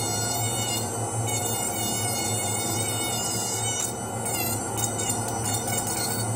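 Dental lab micromotor handpiece running steadily as its bur trims the edge of a cold-cured acrylic custom impression tray, with background music.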